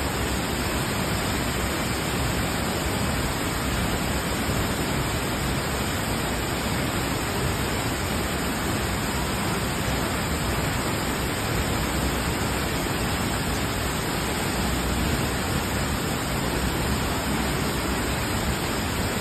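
Cedar Falls, a tall waterfall plunging into its pool, making a steady, unbroken rush of falling water.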